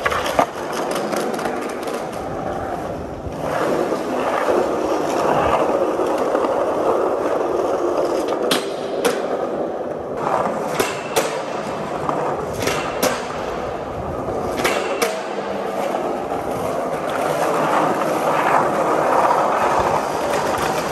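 Skateboard wheels rolling on smooth concrete, a steady rolling noise throughout. In the middle come four pairs of sharp clacks from the board, each pair less than half a second apart.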